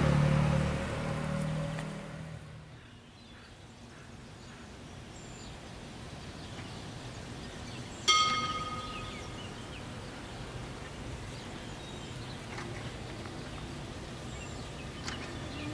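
A road vehicle passing, its rumble fading away over the first couple of seconds, then quiet open-air ambience. About halfway through comes a single bright bell ding from the Alstom TFS tram, ringing out briefly. Right at the end the tram's traction motors start a rising whine as it pulls away.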